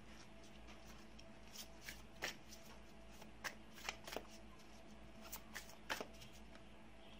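Tarot cards being shuffled and handled: a scatter of faint, sharp card snaps and flicks, about nine in all, over a faint steady hum.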